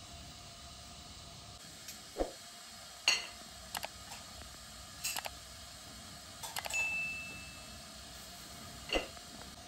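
Dishes and drinking glasses clinking and knocking during a meal, about half a dozen separate light clinks, one leaving a brief ringing tone about two-thirds of the way through.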